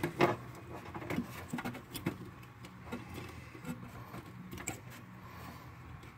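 Fingers handling the plastic fuel-line and wiring connectors on top of a car fuel pump in its tank access hole: scattered small clicks and taps, the loudest about a quarter second in.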